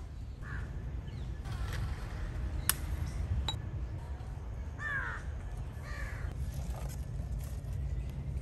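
Crows cawing several times over a steady low rumble, with two sharp clicks near the middle as firewood is handled at a clay oven.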